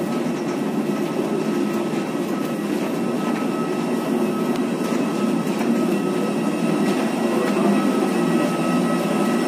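Steady mechanical drone with a constant high whine running through it, heard inside an enclosed boarding jet bridge beside a parked airliner.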